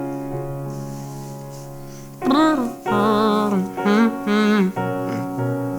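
Held piano chords ringing and slowly fading; about two seconds in, the singer comes in with a short wordless vocal run with vibrato over them, then the chords ring on to close the song.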